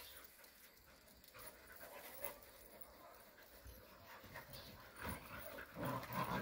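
Jindo dogs panting while they play-fight on grass. Their sounds get louder from about five seconds in.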